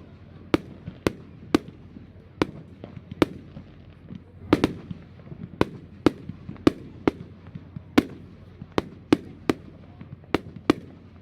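Fireworks going off: a steady run of sharp, irregular bangs, roughly one to two a second.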